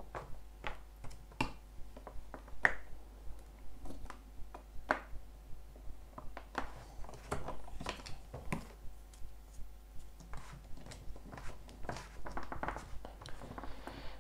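Small irregular clicks and taps, about two a second, from hands handling plastic Play-Doh toy pieces and dough on a tabletop.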